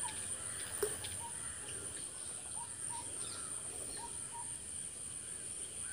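Rural outdoor ambience: a steady high-pitched insect drone, with short bird chirps repeating every second or so.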